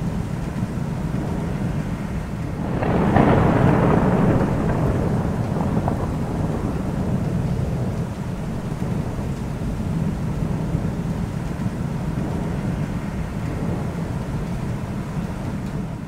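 Thunderstorm: steady rain with a continuous low thunder rumble, and a louder roll of thunder building about three seconds in, then slowly fading.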